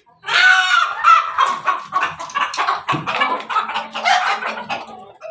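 Crossbred ayam ketawa (laughing chicken) rooster, with pelung and bangkok blood, crowing one long crow of rapid, stuttering notes that lasts nearly five seconds.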